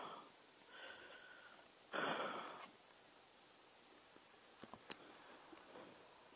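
Close, faint breathing at the microphone, with one louder exhale about two seconds in, and two small clicks near the middle.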